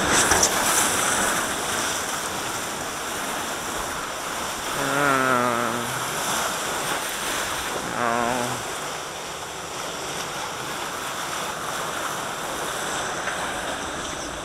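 Rushing, churning whitewater of a river rapids raft ride, splashing steadily around the raft. A low voice lets out a long wavering cry about five seconds in and a shorter one near eight seconds.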